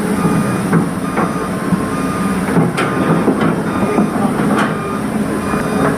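Heavy vehicle engine running steadily, with several sharp metallic clanks and knocks, and a reversing beeper sounding in short beeps during the first second.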